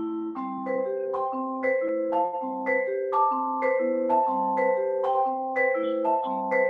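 Vibraphone played with four yarn mallets, running a repeating kora-style ostinato: a cycling figure of low notes interlocking with higher ones, with one middle note held ringing from about a second in.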